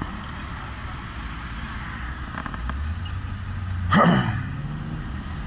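Ride noise from an electric scooter moving through town: a steady low rumble of wind and tyres, with a low steady hum joining about three seconds in. About four seconds in, a person makes one brief, loud vocal sound that falls in pitch.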